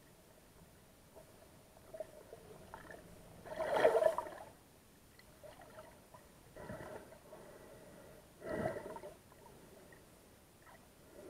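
Muffled water sounds through an underwater camera's housing, broken by three gurgling, whooshing bursts of water movement; the first, about four seconds in, is the loudest.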